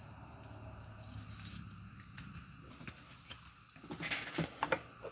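Trading cards and their packaging being handled: scattered soft clicks, then a short burst of rustling and clicking about four seconds in.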